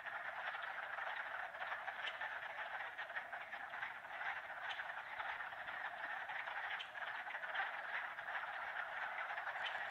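Dense, unbroken chorus of spring peepers and other frogs in a wetland, with single sharp high peeps standing out from the mass every so often.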